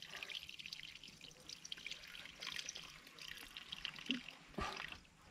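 Faint dripping and trickling water, with one sharp knock about four and a half seconds in.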